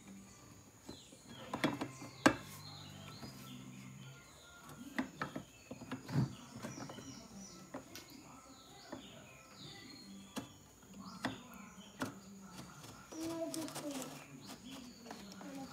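Clicks and knocks of hands handling a plastic solar street-light housing, the loudest about two seconds in, with birds chirping in the background.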